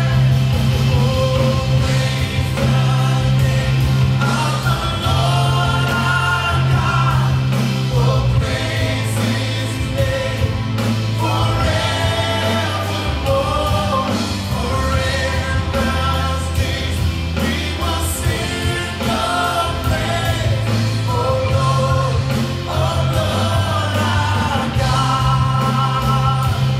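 Live band music: a male lead singer on a handheld microphone over electric bass and a drum kit. Sustained bass notes change every few seconds under the sung melody and steady drum hits, picked up by a camera's built-in microphone.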